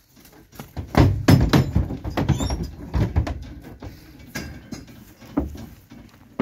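Mules' hooves thudding and clattering on the ramp and floor of a horse trailer as they walk in, a dense run of hollow knocks loudest in the first couple of seconds and then fewer and fainter.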